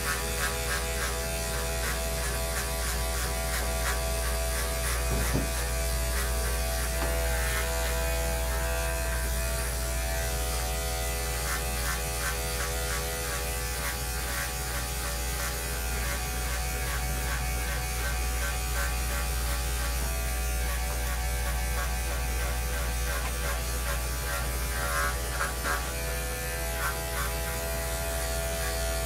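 Corded electric dog-grooming clippers running steadily with a buzz while shaving a large dog's coat.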